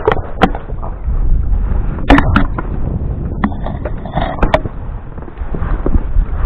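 Handling noise from a camera being moved about: several sharp knocks and rubbing over a constant low rumble on the microphone.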